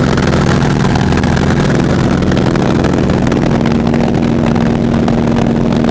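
Sukhoi Su-29's nine-cylinder radial engine and propeller running steadily in cruise flight, heard from inside the cockpit with wind hiss. A higher steady hum joins about three and a half seconds in.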